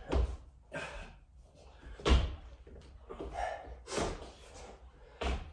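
Body-weight thuds of someone doing burpees on a floor, with hands and feet landing heavily about every two seconds and fainter knocks between the landings.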